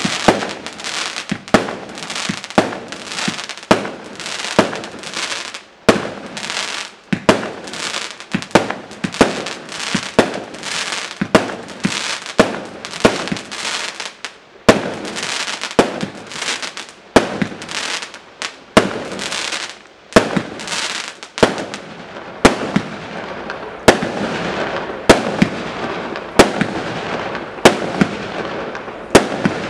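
Imperial Lotus IL2001 single-ignition firework cake (20 mm tubes) firing shot after shot: a sharp bang roughly every half-second to second, with a steady hiss between the bangs.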